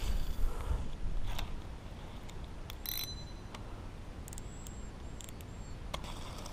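Spinning reel being handled: a few sharp metallic clicks, one about three seconds in with a brief ringing ping, and more light clicks later, over low rumble from the rod and reel being moved in the first second or so.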